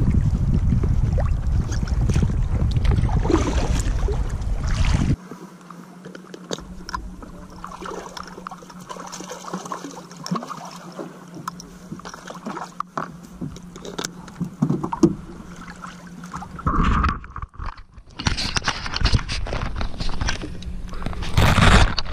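Wind rumbling on the microphone over water sloshing around a sea kayak; about five seconds in it drops abruptly to a quieter stretch of water lapping with small scrapes and knocks and a faint steady hum, and near the end louder splashing and handling noise returns.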